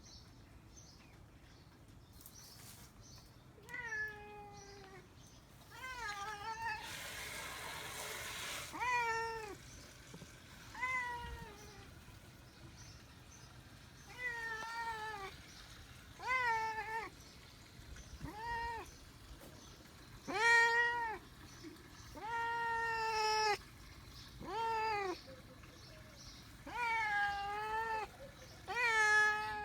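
A domestic cat meowing over and over, about a dozen separate rising-and-falling meows one to two seconds apart, typical of a hungry cat begging for food. A short burst of hissing noise comes about seven seconds in.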